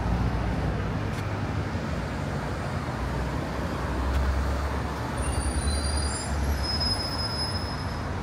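City street traffic: motor vehicles driving past with a steady low rumble that swells about four to six seconds in, with a few thin high-pitched tones near the end.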